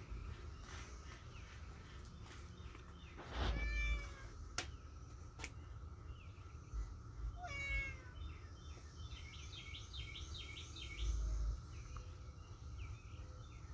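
Domestic cat meowing twice, once about three and a half seconds in and again about seven and a half seconds in.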